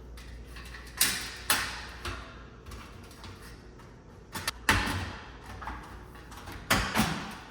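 Sheet-metal ballast cover of a fluorescent light fixture being fitted back into place: sharp clicks and knocks in pairs, about a second in, in the middle and near the end, as the metal is pushed over the lip.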